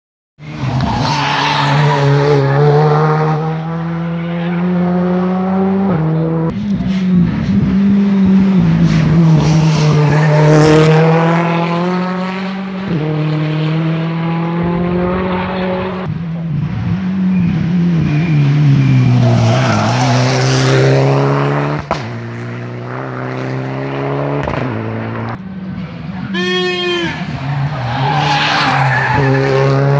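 Rally car engine revving hard on a stage, out of sight, the pitch climbing and then dropping back every few seconds with each gear change.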